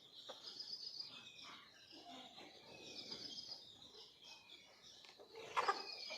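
Faint outdoor farm background: a short, high, falling chirp repeats about every second and a half over a steady high trilling of insects or small birds. There is a brief louder rustle near the end.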